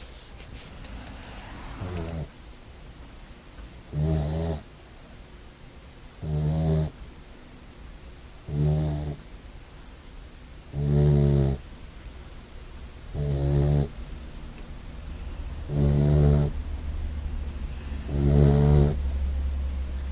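English Mastiff puppy snoring in its sleep: a pitched snore on each breath, about every two and a half seconds, eight in all.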